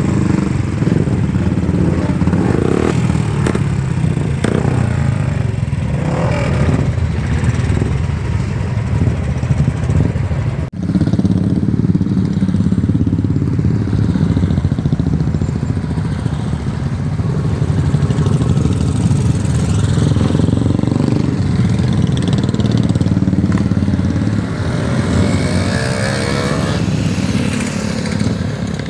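Several motorcycle engines running loud and close, bikes pulling away one after another. The sound breaks off for a moment about a third of the way in, and one engine revs up, rising in pitch, near the end.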